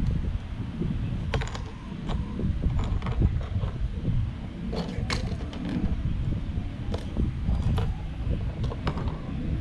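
Plastic parts of a Blokees Galaxy Version Optimus Prime snap-together figure kit clicking and creaking as they are handled and fitted together. About a dozen irregular sharp clicks sound over a steady low rumble.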